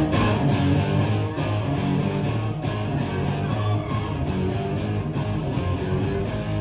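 Background music led by guitar, with a steady pulse.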